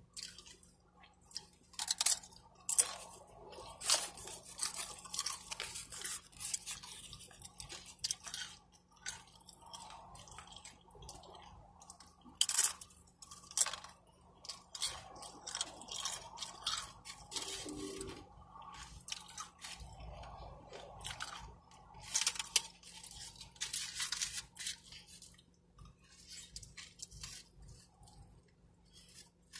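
Close-miked chewing and mouth noises from eating a burrito: a run of irregular wet clicks and crackles, with a few louder ones.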